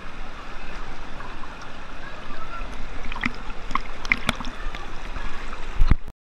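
River water rushing through rocky rapids, heard close up with the microphone at the waterline, with a few sharp clicks and knocks in the second half. The sound cuts off abruptly about six seconds in.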